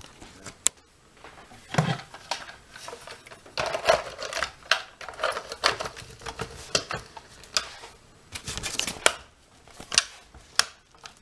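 Countertop blender jar jammed full of ice and bananas, grinding with irregular clacking and knocking as the ice chunks rattle against the jar and blades. The blender is struggling with the overpacked load.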